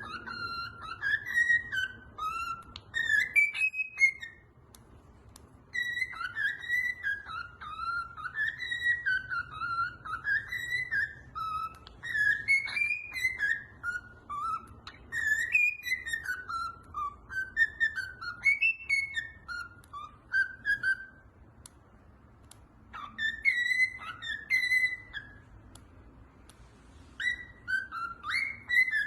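Pet bird whistling a long, warbling run of notes that slide up and down in pitch, in phrases with a couple of short pauses.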